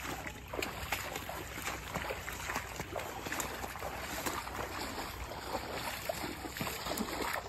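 Steady irregular rustling and crackling of dry grass and brush brushing against legs and clothing while walking through cover.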